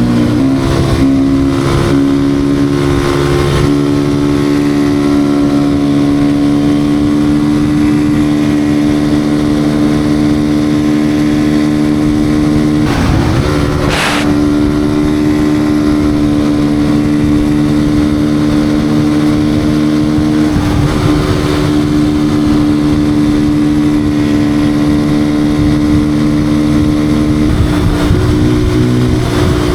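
Beta RR 125 R supermoto's single-cylinder engine running loud at a steady engine speed, with brief changes about halfway through and again near the end. Wind buffets the microphone underneath.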